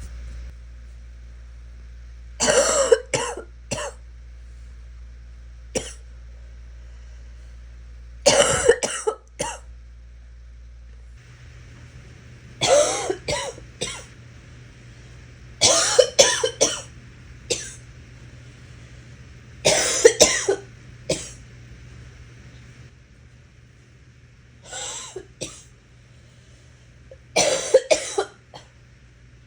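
A person's gagging cough, coming in about eight fits spaced a few seconds apart, each of one to four hacking coughs.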